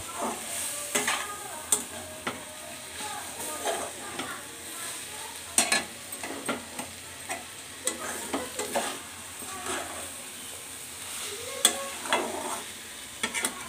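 Long metal spatula stirring potatoes and fenugreek leaves in a metal kadai: irregular scrapes and clinks of metal on metal over a steady frying sizzle. The greens' liquid has cooked off, so the vegetables fry dry in the oil.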